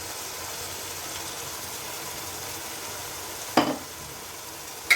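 Onion-tomato masala with freshly added curry leaves frying in oil in a pan: a steady sizzle. A stirring spoon knocks sharply against the pan twice, about three and a half seconds in and again near the end.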